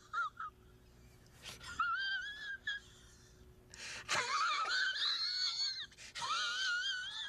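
A high-pitched, wavering wail with a fast vibrato, in several phrases with short gaps; the longest phrase, about two seconds, swoops up about four seconds in.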